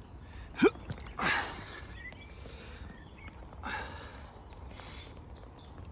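A short vocal grunt followed by breathy exhales from a man handling a large fish, with small birds chirping faintly near the end.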